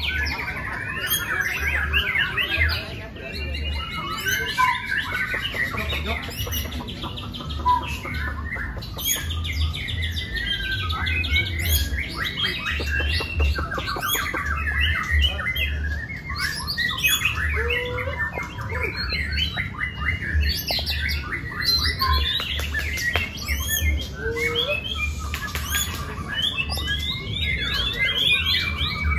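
Many caged white-rumped shamas (murai batu) singing at once in competition: overlapping whistled phrases, rising and falling glides and rapid trills and chirps, with no pause.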